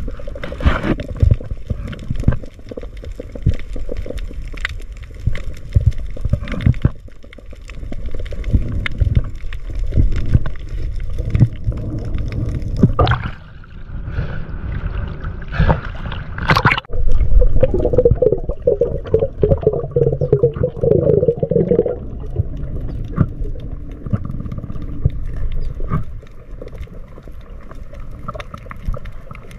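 Seawater sloshing and gurgling around a camera being carried through the water, with knocks and turbulence throughout and a burst of splashing at the surface about halfway through.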